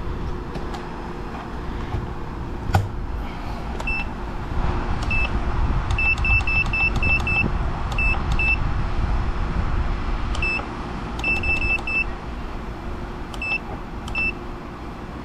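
Masterbuilt digital electric smoker's control panel beeping at each button press as the temperature and time are set: short high beeps, single and in quick runs of four or five. Under them runs a steady low rumble, with one sharp knock about three seconds in.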